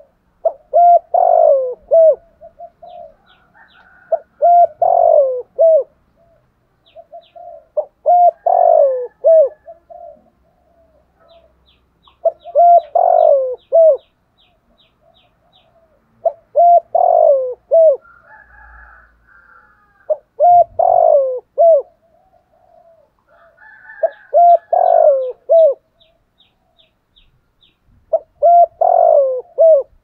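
Spotted dove cooing: a phrase of several pitched coos, one longer falling note among them, repeated about every four seconds.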